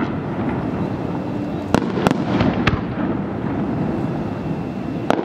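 Aerial fireworks display: shells bursting with sharp bangs over a continuous din, three in quick succession about two seconds in and two more near the end.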